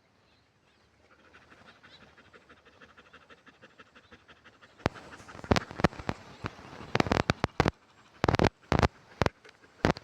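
A dog panting fast and evenly. About halfway through, a run of loud, sharp thumps and clicks takes over.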